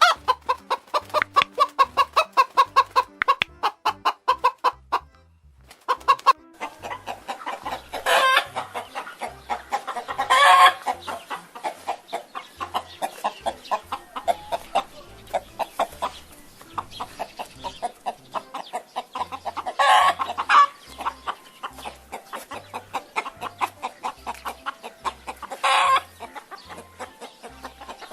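Chickens clucking in a rapid, continuous stream, with a short break about six seconds in and several louder calls standing out above the clucking.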